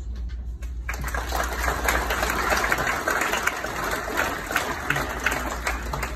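Audience applauding: a few scattered claps, then full, dense applause from about a second in, thinning near the end.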